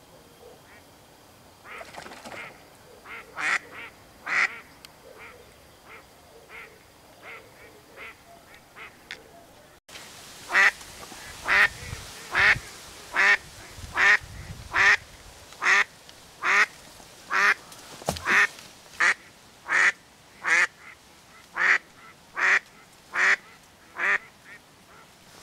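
Duck quacking: a few scattered quacks at first, then, from about ten seconds in, a long, even series of louder quacks at about one and a half to two a second.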